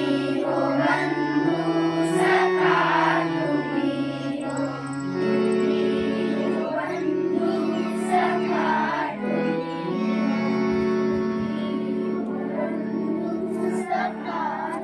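Harmonium playing sustained chords that change every second or two, accompanying a group of children singing together in unison.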